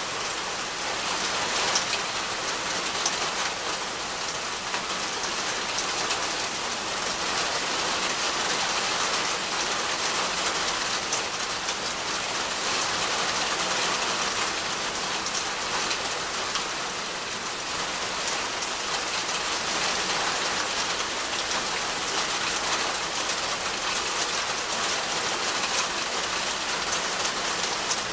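Steady rain falling on leafy trees and undergrowth: an even hiss of rain with many individual drops ticking through it.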